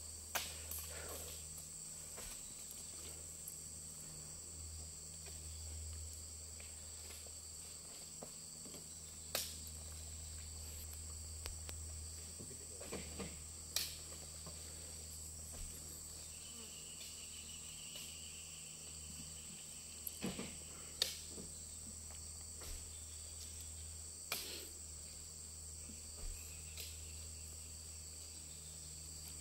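A steady high insect chorus over a low steady hum, broken every few seconds by short sharp knocks as oil palm fruit bunches are thrown up onto the truck's load.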